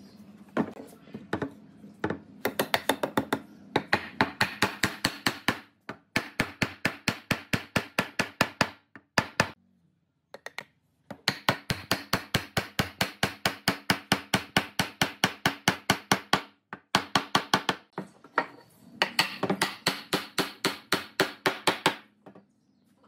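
Rapid, evenly spaced hammer strikes on wood, about four a second, in several runs with short pauses: a wooden table leg being driven into a glued mortise in the base.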